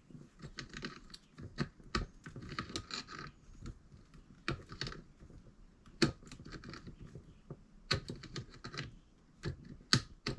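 Irregular small clicks, taps and scraping from hands working with electrical wiring and small fittings at a wall outlet box.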